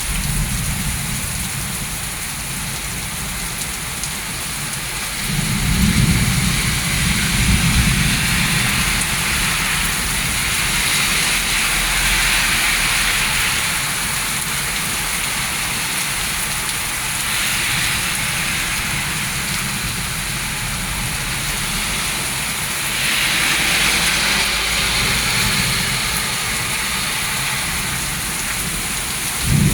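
Heavy rain pouring steadily in a thunderstorm, with deep rumbles of thunder about five seconds in and again at the very end.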